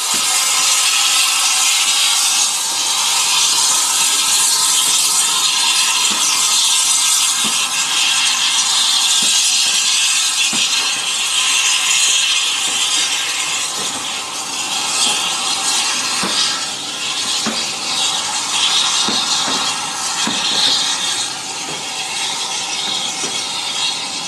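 Steam train pulling out slowly, its coaches rolling past under a loud, steady hiss of steam, with irregular clicks from the wheels on the track.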